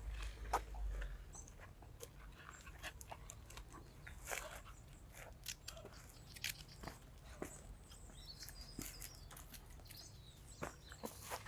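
A puppy making faint, irregular small noises: scattered short clicks and snaps, with a brief thin high squeak about nine seconds in.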